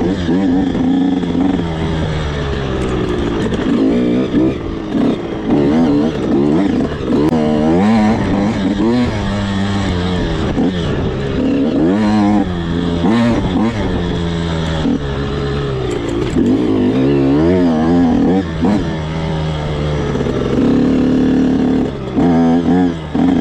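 85cc two-stroke dirt bike engine running hard. Its pitch climbs and falls again and again as the throttle is opened, shifted and chopped, with brief dips when the throttle is rolled off.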